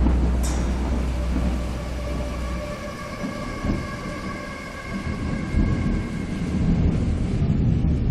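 A deep rumble that cuts off about two and a half seconds in, overlapped by a steady droning chord of several held tones that lasts to near the end: a dark intro sound effect.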